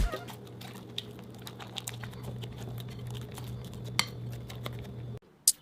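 Slime being handled: scattered soft clicks and crackles over a steady low hum, with one louder click about four seconds in. Near the end the hum cuts off and a couple of sharp, loud clicks follow.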